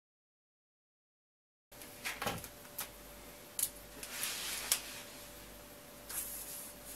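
Dead silence for the first second and a half or so, then a quiet room with a faint steady hum and a few light clicks and rustles of a pen and paper being handled at a table.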